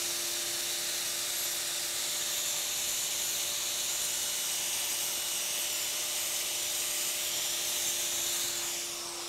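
Angle grinder with a diamond blade running against concrete, scuffing the surface to texture it: a steady gritty hiss over a constant motor whine, dropping off near the end.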